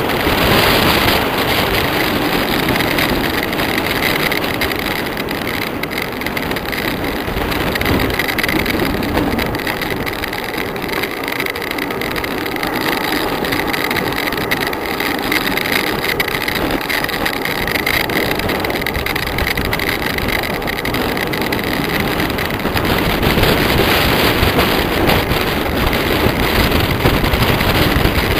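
Wind rushing over the microphone of a camera on a bicycle during a fast downhill ride, a steady loud rush that grows stronger during the last few seconds.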